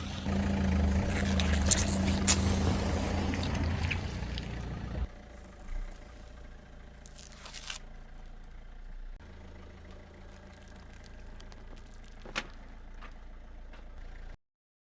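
Car engine running as a tyre rolls over and crushes objects, with dense crackling crunches and two sharp cracks about two seconds in. After an abrupt change about five seconds in, the engine idles more quietly with a few isolated snaps.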